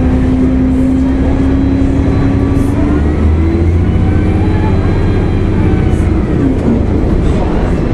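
2004 Gillig Phantom transit bus with a Cummins ISL diesel and Voith D864.3E automatic transmission, running under way with a steady low rumble. A drivetrain whine holds one pitch, sinks a little, climbs about three seconds in and fades, and a shorter falling tone follows near the end.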